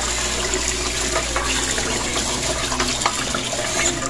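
Tap water running into an aluminium pot while glutinous rice is washed by hand, the grains swished and rubbed in the water.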